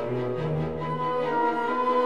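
Instrumental background music: held low notes under a higher melody that steps from pitch to pitch.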